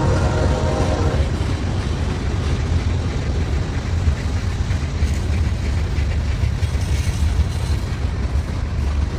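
Heavy Union Pacific freight train grinding upgrade: a deep, steady rumble of diesel locomotives working under load. A fainter higher whine fades out about a second in.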